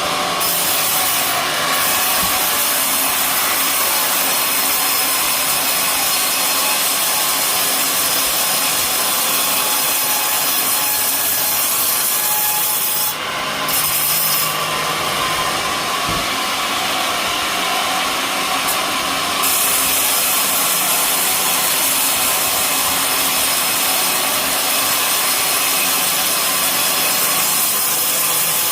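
Sawmill blade cutting lengthwise through an old coconut palm trunk, a steady loud cutting noise that dips briefly about halfway through.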